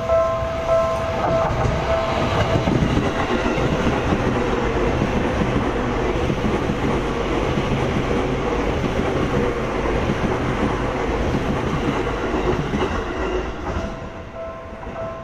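A Seibu Shinjuku Line commuter train passes close by, its wheels clattering over the points and rail joints in a long, even rumble that fades near the end. A level-crossing warning bell rings in a steady repeating two-tone pattern at the start. It comes through again as the train noise dies away.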